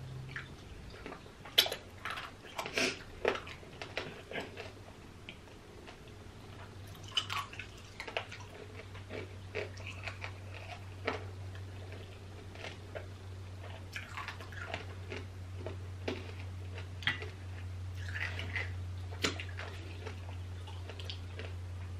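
Close-up chewing of candied strawberries: sharp crunches of the hard sugar shell, closely spaced in the first few seconds, then irregular softer crunches and mouth smacks. A steady low hum runs underneath.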